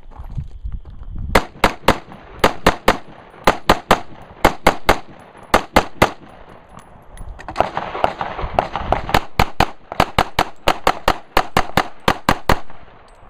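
Semi-automatic rifle fired in quick pairs of shots from about a second in, then after a brief pause a handgun fired in a faster string of shots until near the end.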